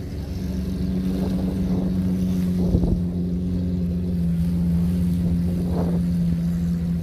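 An engine running steadily at an even pitch, a low drone with some wind on the microphone.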